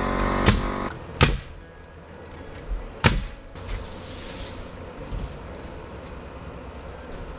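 Sharp knocks from construction work: three loud strikes in the first few seconds, then a few fainter ones. A ringing tone from a strike just before fades out within the first second.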